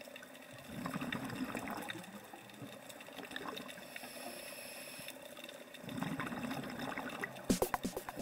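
Underwater sound through the camera: a scuba diver's exhaled bubbles from the regulator, twice a few seconds apart, over a steady hiss with light crackling. Music with a quick regular beat comes in near the end.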